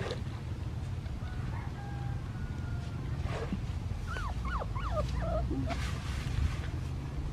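An animal gives a quick run of about half a dozen short, high, arching squeaky calls about four seconds in, over a steady low rumble.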